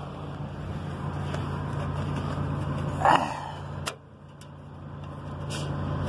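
Diesel truck engine idling, a steady low hum that drops away briefly about four seconds in and comes back, with a short higher-pitched sound just after three seconds and a few light clicks.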